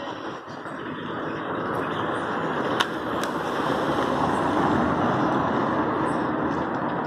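A car driving past on a street, its tyre and engine noise swelling to a peak and holding, with two short clicks near the middle.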